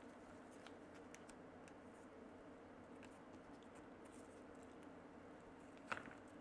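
Faint ticks and taps of gloved fingers working a flex cable into an iPhone housing, over a faint steady hum, with one sharp click near the end as the flex connector is pressed into place.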